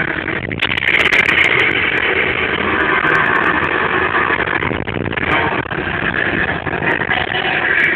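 Bus engine running with rumble and rattle, heard from inside the passenger cabin.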